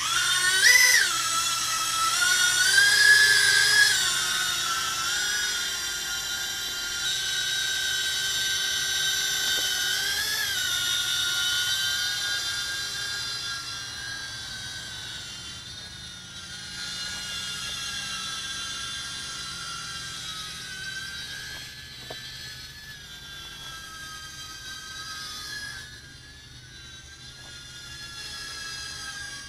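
Inductrix 200 FPV mini quadcopter's motors and propellers whining as it lifts off, the pitch swinging up and down with the throttle. The whine is loudest in the first few seconds, then grows fainter as the quad flies off.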